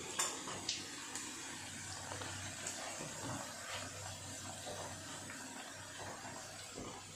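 Sliced onions frying in hot ghee and melting fat in a large metal pot, a steady sizzle, with a few sharp metal clinks of a slotted spoon against the pot in the first second or so.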